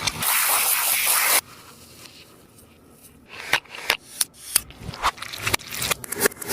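Sticky taba squishy being pressed and handled. A loud rubbing rush cuts off abruptly about a second and a half in, followed by an irregular run of sharp sticky clicks and crackles.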